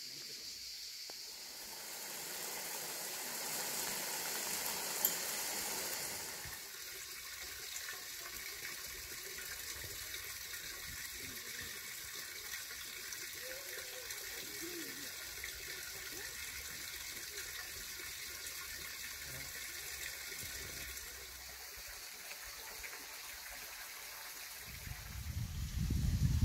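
Water running steadily in a small forest stream, a little louder for a few seconds early on. Near the end a gust of wind buffets the microphone with a low rumble.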